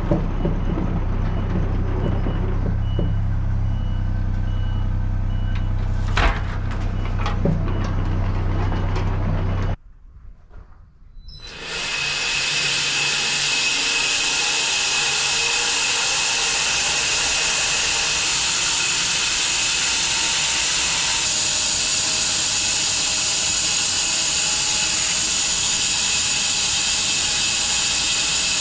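Home-built bandsaw sawmill running while sawing elm: a steady low drone with a sharp knock about six seconds in. After a brief drop-out it is followed by a steady hissing whine with a high tone.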